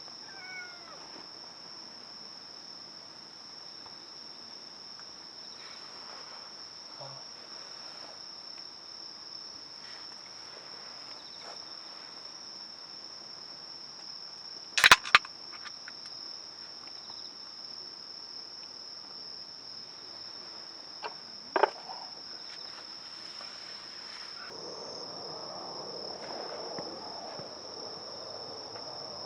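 Crickets or similar insects trilling in a steady, unbroken high chorus. A sharp loud click or knock cuts in about halfway through, a smaller one follows some seven seconds later, and a soft rustling noise joins near the end.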